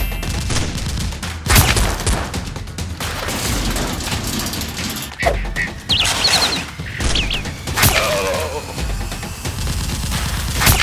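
Rapid, continuous gunfire sound effects, with several louder single bangs standing out from the volley, over background music.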